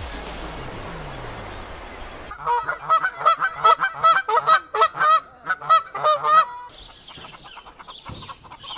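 A goose honking in a rapid string of short calls, about fifteen over four seconds, after a couple of seconds of steady hiss.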